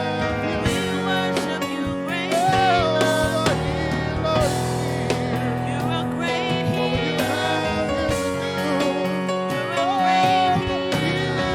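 Gospel worship music: a band playing steadily with drum beats under a voice singing a wavering melody.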